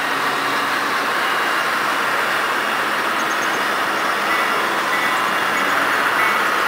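HO scale model train running past on the layout's track: a steady rolling and motor noise.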